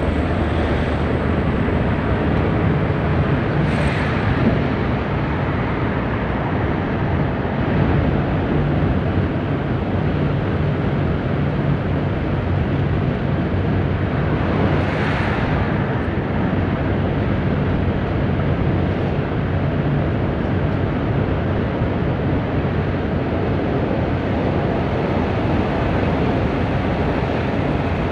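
Bus engine running steadily at highway cruising speed, with tyre and wind noise, heard from inside the cab. A brief rushing swell rises twice, about four seconds in and again around fifteen seconds in as it passes under an overpass.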